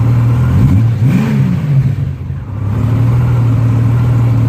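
Honda Goldwing GL1500 flat-six engine idling steadily, revved once briefly about a second in, the pitch rising and falling back to idle. Its mufflers have had their valves cut off and end caps fitted, which the owner finds too loud with too much bass. It runs and idles smoothly after a carb sync, new spark plugs and a repaired coil connection.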